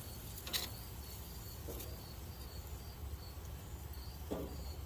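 Crickets chirping steadily, short high chirps about two a second, with a few soft knocks of handling over a low steady hum.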